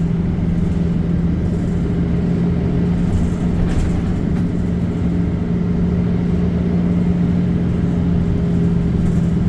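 Bus engine and road noise heard from inside the moving bus: a steady, even drone with a low hum.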